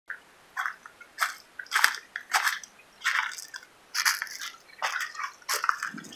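Footsteps crunching through dry leaf litter and twigs, about eight steps at a walking pace.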